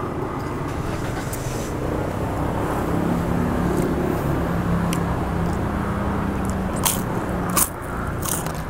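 Crunching bites and chewing on a crisp fried peanut cracker (peyek), with sharp crunches a couple of times near the end, over a steady low background hum.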